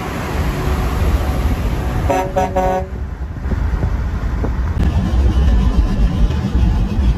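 Low rumble of road traffic, cut by three quick horn toots a little over two seconds in, then a vehicle's engine rumble growing louder in the second half.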